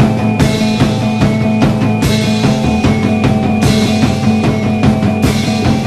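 Rock band recording: drums, bass and electric guitar playing a steady beat, with a cymbal crash about every second and a half.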